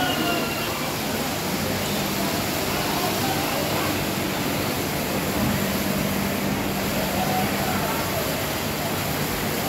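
Water jetting up from a leaking pipe, a steady hissing spray, over a steady low hum.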